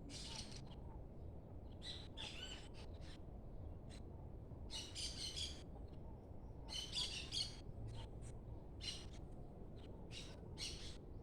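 Birds chirping in short bursts every second or two over a steady low drone from the sky, a hum likened to a swarm of bees.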